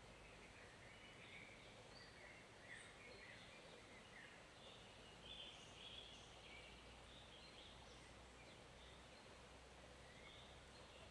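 Faint, steady hiss of a small forest stream flowing, with scattered faint bird calls over it.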